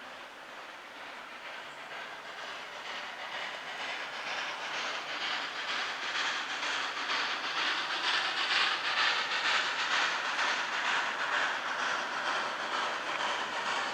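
A train approaching and growing steadily louder, a rushing noise with a quick, even rhythmic beat running through it.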